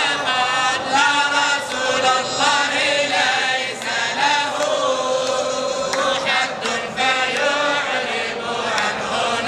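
A group of men's voices chanting together, the sustained melody wavering up and down in pitch.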